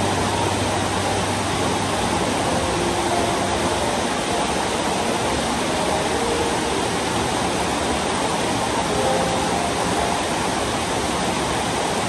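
Rain falling steadily: an even hiss with no breaks.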